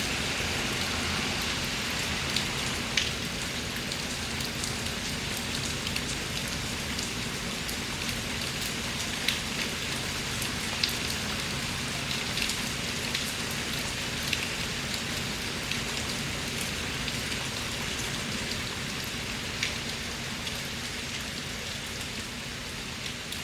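Thunderstorm rain falling steadily: a dense, even hiss with scattered sharper drop impacts, easing slightly near the end.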